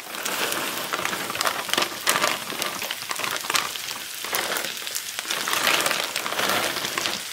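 Frozen white corn kernels pouring from a bag into a hot cast iron skillet of onions frying in bacon grease and butter: a pattering of many small ticks over a steady sizzle.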